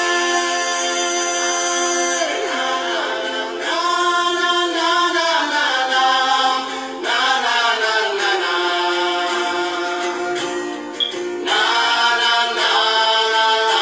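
Music: several voices singing together in long held notes.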